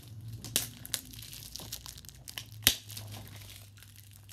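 Crinkling and rustling of plastic packaging as discs are handled, with a few sharp clicks, the loudest about two and a half seconds in. A steady low hum runs underneath.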